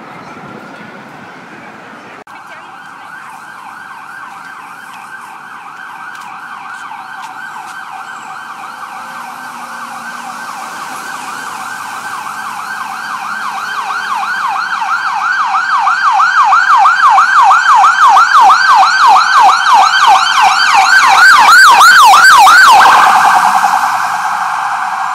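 Ambulance siren in a fast yelp, about four or five warbles a second, growing steadily louder as the ambulance approaches. It is loudest about 22 seconds in, then the yelp breaks off into a steadier, falling tone as the ambulance goes by.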